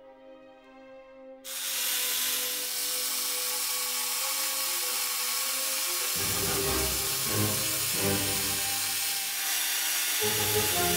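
Bosch PST 650 jigsaw switching on about a second and a half in and running steadily. From about six seconds its blade cuts into a clear acrylic sheet, adding a heavier, rougher low sound.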